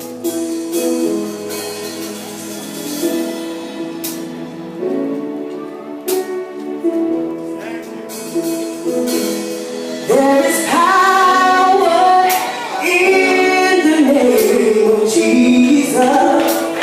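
Live gospel band opening a worship song: sustained keyboard chords for the first ten seconds or so, then a singer's voice comes in over them with gliding, ornamented runs without clear words.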